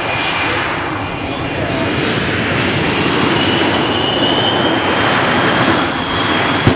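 Shockwave jet truck's three jet engines running on afterburner, a loud steady jet noise. A high whine comes in a little before halfway, and there is a single sharp bang near the end.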